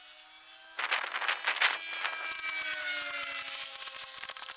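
Cordless impact driver running down the outer-cover bolts on a skid-steer track drive motor. Its motor whines from about a second in, with rapid hammering from about two seconds in, and stops near the end.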